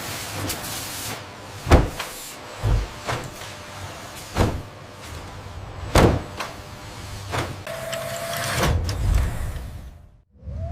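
Factory machinery: a steady hiss with six sharp clunks, one about every second and a half, the second and fourth loudest, and a brief steady whine near the end before the noise cuts off suddenly.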